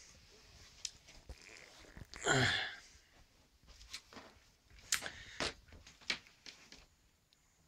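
Quiet handling noise: one short breathy burst about two seconds in, then scattered sharp clicks and taps.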